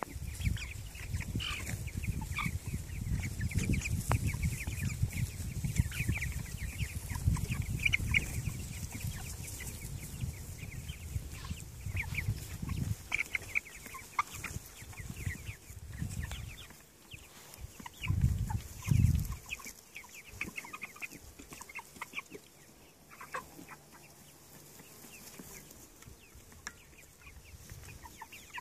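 A flock of young white broiler chickens calling steadily in many short, high cheeps and clucks. For the first half a loud low rumble on the microphone runs under them, with two stronger low surges a little past halfway, after which the calls carry on over a quieter background.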